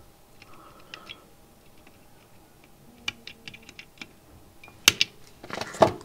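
Small side cutters snipping a wire lead on a perfboard circuit board: a scatter of light clicks and taps, then two sharp snaps about a second apart near the end.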